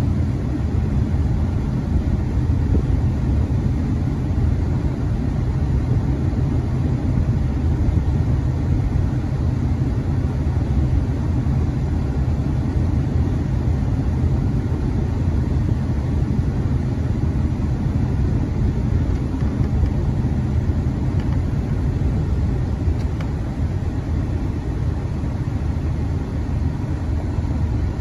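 Steady low rumble of road and engine noise inside a moving road vehicle, heard through closed windows, with a freight train rolling alongside.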